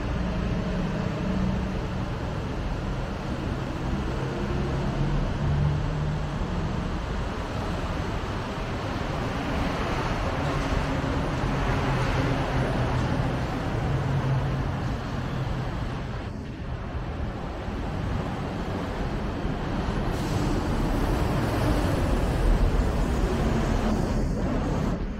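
Road traffic with the engines of cars and buses passing, a steady rumble that swells and fades as vehicles go by.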